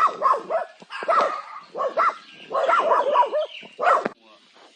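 A dog barking repeatedly in quick runs, stopping about four seconds in.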